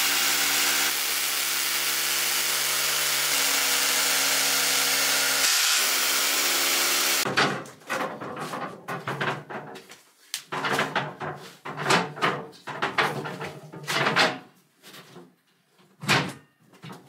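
Hammer drill boring into a solid sand-lime brick wall, a steady loud run with a brief break about five seconds in, stopping about seven seconds in. Then irregular knocks and clunks as the steel rack cabinet is handled and hung on the wall.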